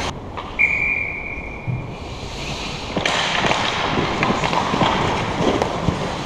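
Ice hockey play: skates scraping and carving on the ice, with a few sharp clacks of sticks or puck, the scraping getting louder about halfway through. About half a second in, a steady high-pitched tone holds for just over a second.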